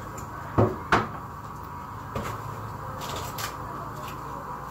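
Two sharp knocks close together under a second in, then a lighter knock a little after two seconds and a few faint clicks, over a steady low background hum: household knocks in a kitchen, like a cupboard door being shut.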